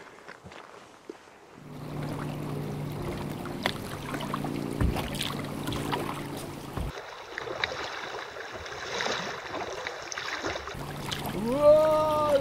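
Rushing river water around a small drifting boat, with a few knocks. Near the end a pitched sound rises and falls twice.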